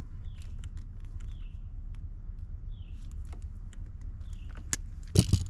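Hand crimping tool squeezing an insulated butt connector onto a wire, with small clicks and wire-handling noises and a louder sharp crackle about five seconds in, over a low steady hum.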